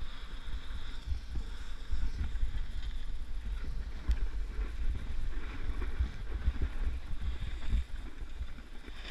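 Wind buffeting the camera microphone with a low rumble, over the uneven hiss of sliding across packed snow during a fast downhill run.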